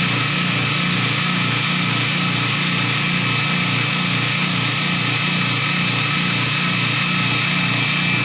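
Bench belt grinder, a Baldor 1/2 hp motor driving a 100-grit belt over a 10-inch expander wheel, running steadily, with a low throb that repeats a few times a second.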